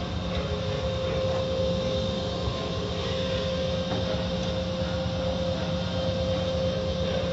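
Automatic tunnel car wash running: water spraying and cloth wash strips slapping over a steady machine hum with one constant tone, heard through a car's wet glass.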